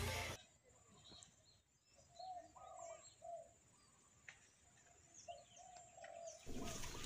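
Spotted dove cooing, a run of short, soft, low coos repeated at the same pitch, with small birds chirping higher above.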